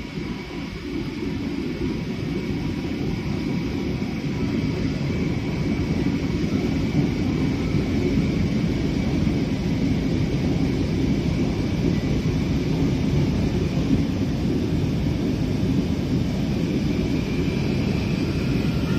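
Jet airliner cabin noise in the climb after take-off: a steady low rumble of the engines and rushing air, with a faint high whine over it. It grows a little louder over the first few seconds, then holds steady.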